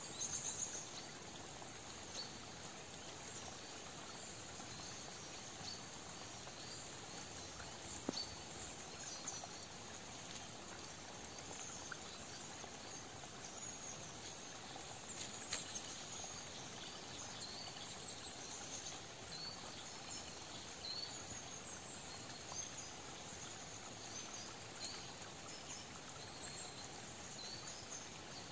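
Quiet autumn woodland ambience: a faint steady hiss with many short, high chirps scattered throughout, and a few soft clicks.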